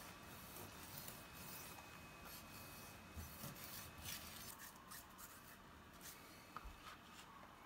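Faint, irregular scraping and rubbing of a kitchen knife and hands on small manini (convict tang) on a plastic cutting board as the fish are cut up.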